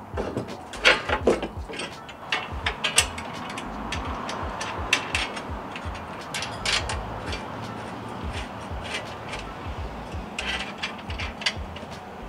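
Metal clicks and clanks of bolts, washers and lock nuts being fitted by hand to a metal bed-rack leg, with quick runs of ratchet-like clicking. The clicking is densest from about half a second to three seconds in, and again near the end.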